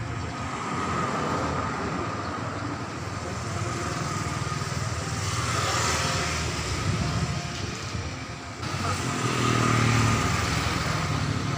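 Street traffic: motor vehicles passing by, swelling louder about halfway through and again near the end.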